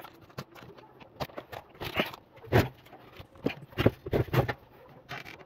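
A series of separate knocks and clatters of small objects being handled and set down on a wooden table, the loudest around the middle.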